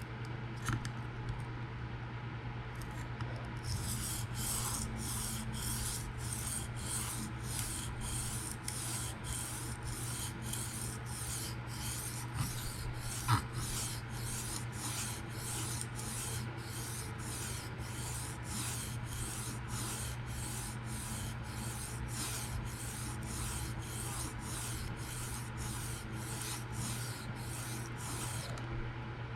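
PM60 steel knife blade being stroked across a diamond sharpening stone in freehand sharpening: an even run of scraping strokes, about one and a half a second, that starts a few seconds in and stops shortly before the end. The strokes are raising a micro burr along the edge.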